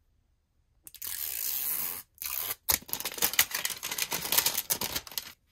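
Plastic film wrapper being torn off a plastic toy canister: a steady rip for about a second, a brief pause, a second short rip, then a run of crackling and crinkling as the film is pulled away.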